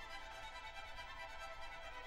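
Slow background music with long held notes, a violin to the fore.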